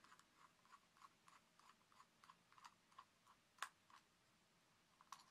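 Small screwdriver turning the little brass screws out of a Wylex plug: faint, quick clicks, about three a second, with a sharper click a little past halfway and another near the end.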